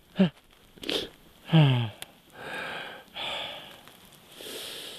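A man's wordless vocal sounds: a few short grunts, then a loud groan falling in pitch about a second and a half in, followed by three heavy breaths.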